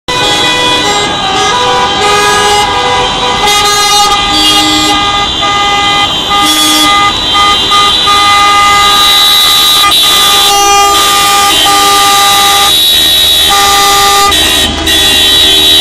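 Several car and van horns honking at once from a passing convoy, long held blasts at different pitches overlapping and stopping and starting throughout.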